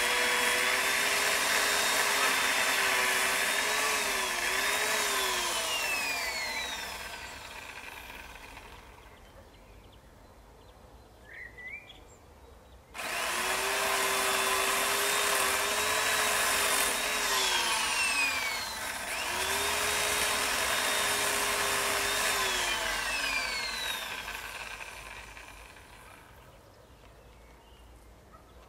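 Electric power saw cutting a tree in two runs: each time the motor comes up sharply to a steady high whine, sags in pitch under load, then winds down and stops. The two runs are separated by a pause of about five seconds.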